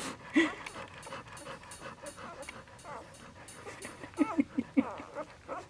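Newborn Labrador retriever puppies squeaking and whining in short, wavering cries, with a quick run of about four squeaks around four seconds in.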